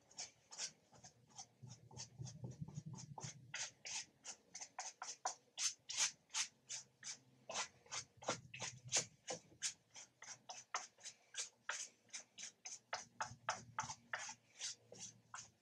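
Paintbrush scrubbing acrylic paint onto a canvas in quick, short scratchy strokes, about four or five a second.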